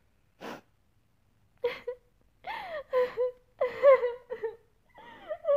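A woman's voice crying and whimpering: a short breathy sound, then from under two seconds in a run of wavering, sliding cries.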